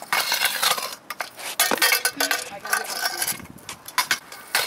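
Stunt scooter grinding a concrete ledge: a rush of metal scraping on concrete, then a string of sharp metallic clacks and knocks as the deck and wheels come down and roll on.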